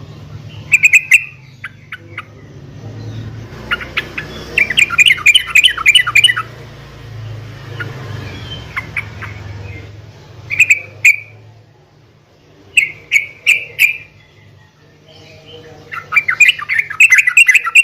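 Yellow-vented bulbul calling in bursts of quick, bubbly chattering notes, with short phrases between two longer rapid runs, one about four seconds in and one near the end. A steady low hum sits underneath.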